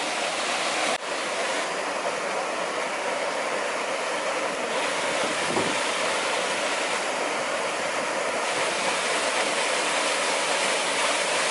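Small waterfall plunging into a rock pool: a steady, even rush of falling and churning water. There is a brief click and dip about a second in.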